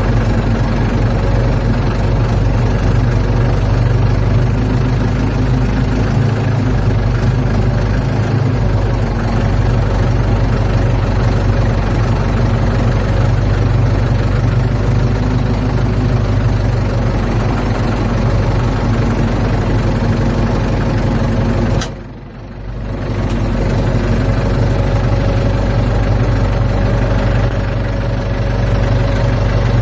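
Ford 755 backhoe's diesel engine running steadily at a low, even speed, with a brief break in the sound about three-quarters of the way through.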